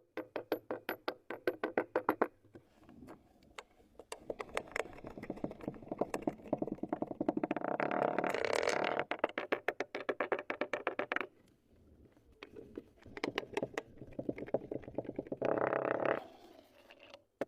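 Slime being squeezed and poked, making quick sticky clicks and pops, several a second, in runs that stop and start.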